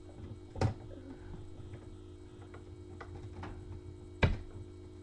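Handling noise: a few scattered knocks and clicks, the sharpest and loudest about four seconds in, over a steady low electrical hum.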